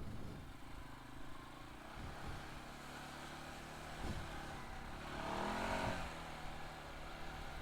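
CFMOTO CForce 500 ATV's single-cylinder engine running on a trail ride. A couple of brief knocks come about two and four seconds in, and the engine rises in pitch and loudness for about a second near the six-second mark as it accelerates.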